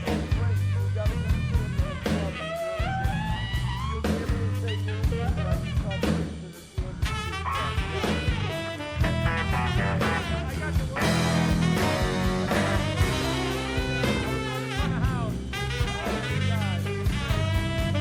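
Rock band playing live: a drum kit keeping the beat under bending lead lines. The music drops away briefly about six and a half seconds in.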